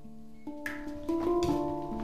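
Handpan tuned to the D Kurd scale, played with the fingers: about five notes struck one after another in two seconds. Each note rings on and overlaps the next, and one sharper tap comes just after half a second in.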